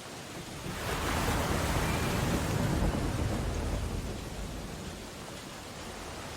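Steady rain on window glass in an ocean storm. About a second in, a louder rushing swell with a low rumble rises and then fades away over the next few seconds.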